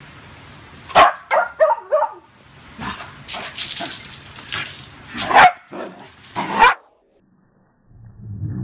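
A small poodle-type dog barking in play: a sharp bark, a quick run of short yips, then two more barks a few seconds later. Near the end, after a brief gap, comes a deep, drawn-out low sound as the iPhone's slow-motion playback slows the audio down.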